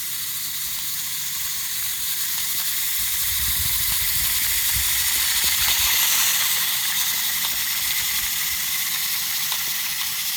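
Steady hiss, loud and even, with a few faint clicks and a low hum underneath.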